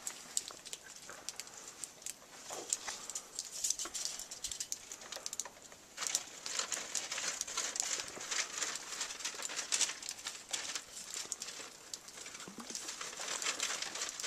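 Soil and small stones rattling and scraping through the wire mesh of a wooden shaker screen as it is rocked back and forth: a dense scratchy crackle of small clicks that gets busier about six seconds in.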